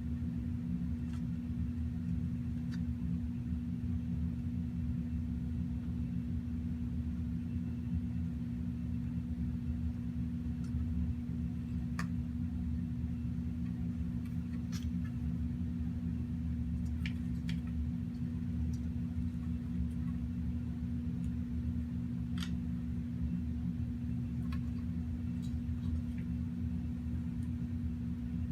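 A steady low hum runs throughout, with a scattering of small, sharp clicks and ticks from fingers handling the graphics card while working a fan connector loose from its board.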